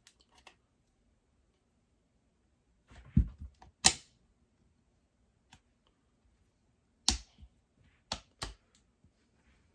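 Sharp metal clicks and clacks of a CZ Czechmate pistol's slide being worked back onto its frame. There is a cluster about three seconds in with the loudest snap near four seconds, then a few more sharp clicks between about seven and eight and a half seconds.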